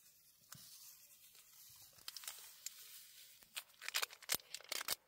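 A plastic sachet crinkling as powder is poured from it into a pot of hot water. Faint rustling builds into denser crinkles and clicks over the last second and a half.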